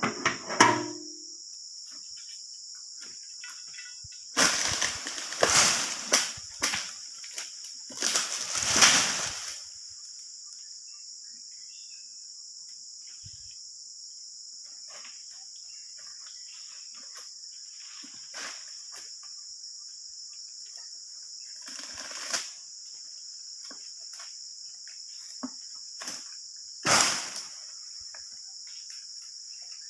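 Steady high-pitched drone of insects, with several loud rustling crashes a few seconds in, and again twice later.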